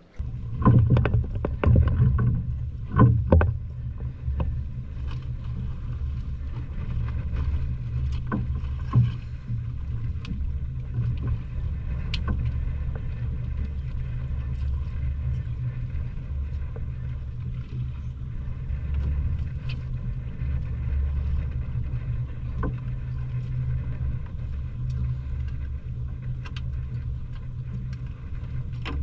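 Boat engine running steadily with a low hum, with scattered knocks and clicks over it. Several louder knocks come in the first few seconds.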